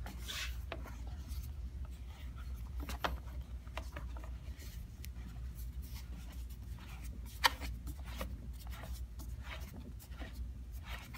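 Light scraping, rubbing and small clicks of a mannequin's arm being screwed onto its torso, with one sharper click about seven and a half seconds in.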